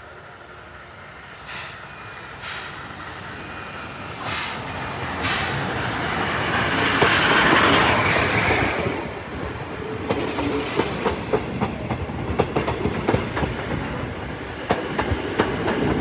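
Steam train passing close by: it grows louder as the locomotive nears and is loudest as the engine goes past about seven seconds in. Then the coaches roll by, their wheels clicking quickly over the rail joints.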